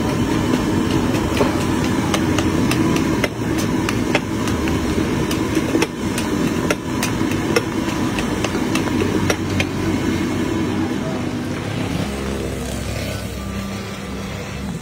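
Metal spatula scraping and clanking against a large wok, about two strikes a second, as a big batch of fried rice is stir-fried over the steady noise of the gas burner. The clanking thins out over the last few seconds.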